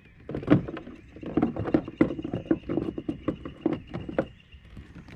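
A fish held by the lip thrashing its tail in the water at the kayak's side, a quick irregular run of splashes and slaps that stops a little after four seconds in.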